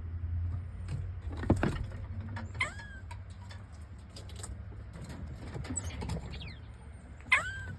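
A squirrel calling: a run of short, sharp chirps and clicks, with two longer calls that rise and then fall in pitch, one about two and a half seconds in and one near the end. A steady low rumble of wind on the microphone runs underneath.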